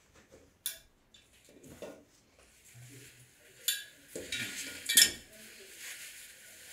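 Steel snake hook clinking and scraping on a tiled floor while a cloth snake bag is twisted and rustles. There are a few sharp clinks, the loudest about five seconds in.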